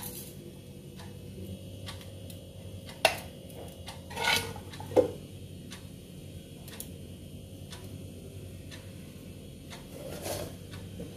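Quiet room tone with a steady low hum and a few scattered light clicks, the sharpest about three seconds in, followed by a brief rustle about four seconds in and another click about five seconds in.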